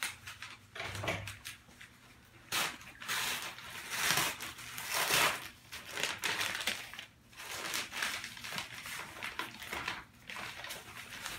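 Crumpled newspaper packing rustling and crinkling in irregular bursts as it is pulled out of a cardboard box.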